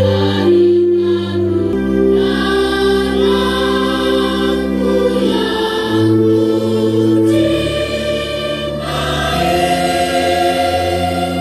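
Large school choir singing an Indonesian patriotic song slowly, in long held chords that change every second or few.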